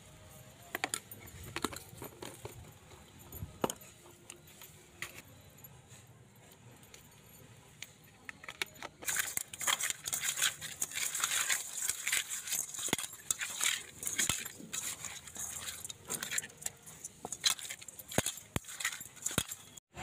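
Raw katla fish pieces being rubbed by hand with turmeric powder in a steel bowl: a busy run of wet scraping and clinking against the metal that starts about halfway through, after a stretch of scattered light taps.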